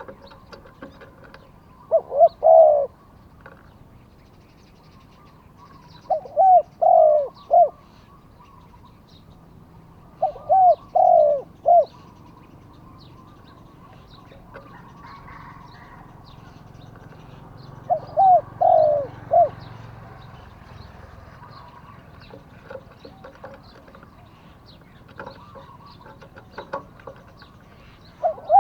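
Spotted dove cooing: four loud phrases of three or four deep coos each, a few seconds apart. Small birds chirp faintly behind.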